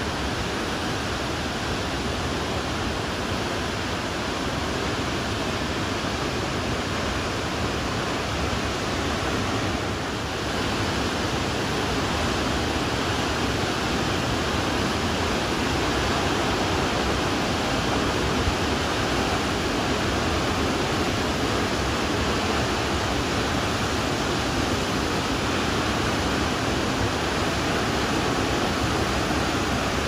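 Shōmyō Falls, Japan's tallest waterfall, a steady, unbroken rush of falling water crashing into its plunge pool, a little louder from about ten seconds in.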